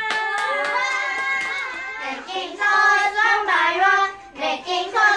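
A group of children singing together, holding a long note for about two seconds and then moving into a short melody. A hand clap or two sounds at the very start.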